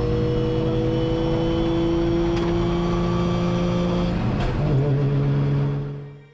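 Drift car engine running at a steady held pitch, changing pitch once about four and a half seconds in, then fading out near the end.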